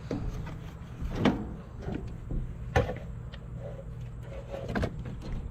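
A few sharp knocks and clunks of tools and parts being handled while working on a combine's engine, three of them louder, over a steady low hum.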